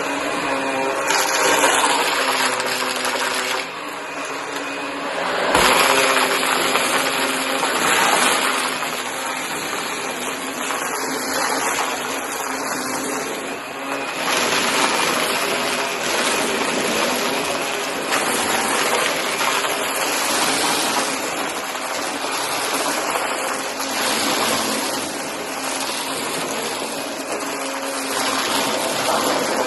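Shark vacuum cleaner running and sucking up pieces of cardboard, its noise swelling and dipping as it works over the mess.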